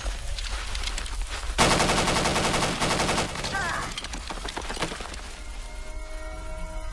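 A machine gun fires one long rapid burst about a second and a half in, lasting nearly two seconds, and the sound trails away. Music with held notes comes in about five seconds in.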